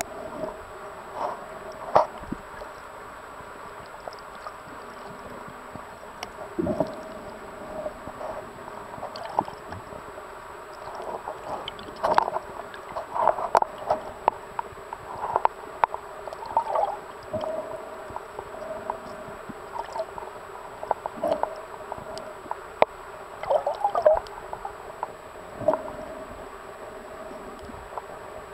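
Underwater sound picked up by a submerged camera: a steady muffled hum with irregular gurgles and sharp clicks scattered throughout.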